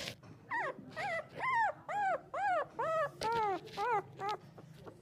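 Newborn puppy crying: a quick series of short, high whimpering cries, each rising and then falling in pitch, about two a second, trailing off near the end.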